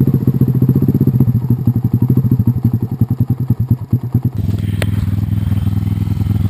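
Dirt bike engine running at idle while the bike lies on its side in the grass. The idle slows and stumbles unevenly, then about four seconds in gives way to a steadier, faster engine sound, with a single knock just after.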